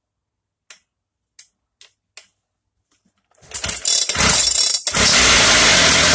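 A few faint clicks, then a Shindaiwa concrete cutter's petrol engine starts a little past halfway, sputters and catches. After a brief dip it runs loud and steady at high speed.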